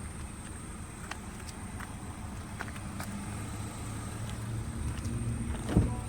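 2025 Honda HR-V running with a steady low rumble and the hissing noise whose cause the owner cannot find. Faint scattered clicks, and one louder thump near the end.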